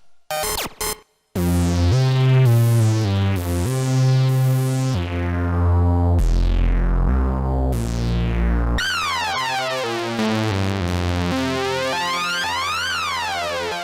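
Roland System-100 software synthesizer playing bass-heavy notes whose bright filter sweeps fall with each note. About two-thirds of the way through, a new patch comes in with a resonant sweep rising and falling in a zigzag.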